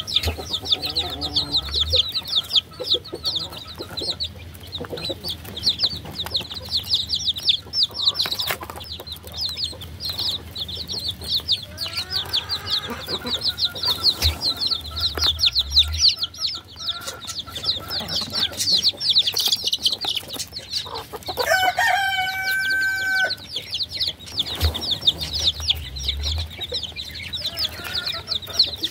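A brood of baby chicks peeping continuously, many fast, high-pitched peeps overlapping. About three quarters of the way through, a longer, lower call from a bigger bird rings out for about two seconds.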